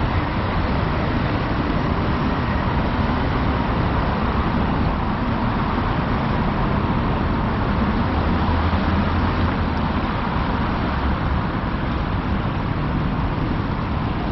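Steady, even roar of subway station noise, with a low rumble swelling briefly around the middle.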